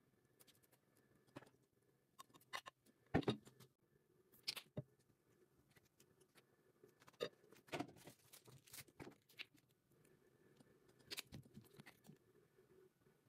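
Quiet kitchen handling sounds: a metal spatula tapping and scraping on a ceramic plate and a wooden cutting board, in scattered clicks and knocks, the loudest about three seconds in and again near eight seconds.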